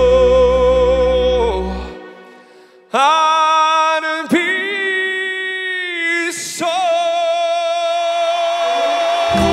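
Live male vocal with a string ensemble: a long held sung note with vibrato over bass fades out about two seconds in, and after a short pause the voice comes back sliding up into another long wordless held note, with the strings sustaining under it.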